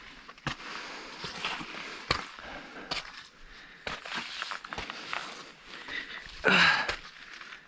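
Hikers' footsteps and scuffing on a mountain trail, with irregular knocks and rustles, and a louder brief rush of sound about six and a half seconds in.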